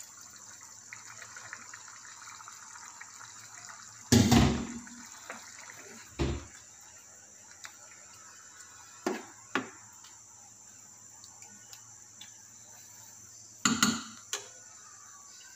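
Stock poured from a jug into a pot of bolognese sauce, the liquid pouring for the first couple of seconds. Then a metal spoon stirs the thick sauce, with several sharp knocks against the pot, the loudest about four seconds in and another near the end.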